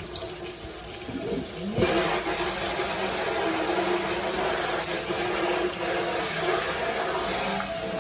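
Kitchen sink faucet running, water splashing into the sink; the flow turns much stronger about two seconds in and then runs steadily.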